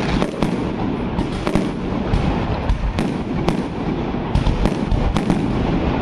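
Aerial fireworks going off: a rapid, irregular run of sharp bangs and crackles from bursting shells, over a continuous low rumble.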